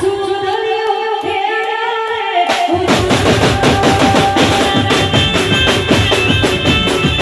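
Live Navratri garba music played over a loudspeaker system. A held, gliding melody line plays with no drums, then about two and a half seconds in the drums and percussion come in with a fast, steady beat under the melody.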